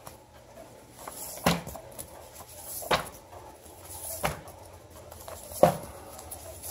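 Paper magazines being handled and flipped down onto a wooden table: four soft slaps about a second and a half apart.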